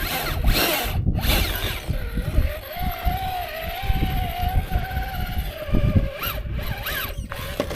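Electric motor of a radio-controlled rock crawler whining as it drives over rocks, rising in pitch about half a second in and again near the end, with a steady whine held in between, over uneven rumbling of the tyres and chassis on rock.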